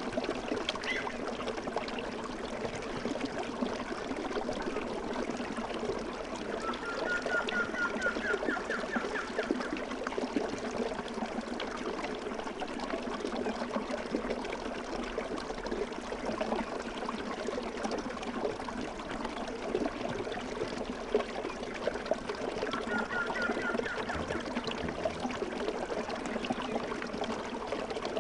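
Babbling stream, water trickling and gurgling steadily. A small bird sings twice over it, each time a short run of quick repeated notes.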